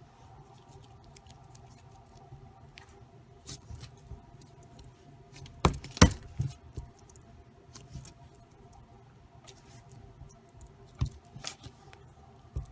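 Scattered taps and knocks of hands handling a lump of Play-Doh on a tabletop close to the microphone, the loudest a pair about six seconds in and a few more near the end, over a faint steady hum.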